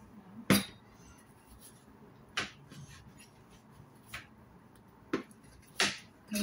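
A kitchen knife slicing through a potato on a plastic chopping board: five separate sharp knocks of the blade meeting the board at uneven intervals, the first, about half a second in, the loudest.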